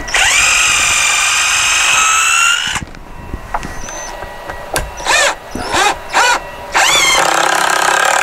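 Cordless drill driving screws through the back of an electrical box into wood. It whines in a long run that spins up at the start and stops after about three seconds, gives a few short trigger bursts, then runs long again near the end.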